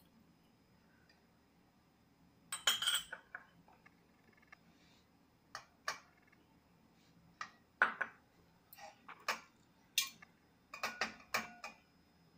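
A metal spoon, a ceramic cup and a small metal idol clinking and tapping against a metal puja plate, in scattered short clinks, some ringing briefly. The first cluster comes after about two quiet seconds, and more clinks follow through the second half.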